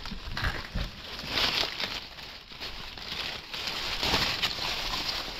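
Dry sugarcane litter rustling and crackling in uneven spurts, with a few dull thumps in the first second.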